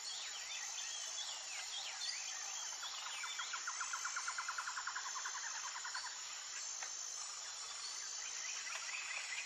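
Birds calling: short chirps at first, a fast trill through the middle, and repeated notes near the end, over a steady high-pitched insect chirring.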